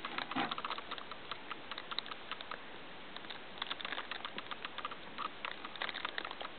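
Hamster moving and scratching in wood-shaving bedding: a quick, irregular run of small crackles and clicks, with a louder rustle about half a second in.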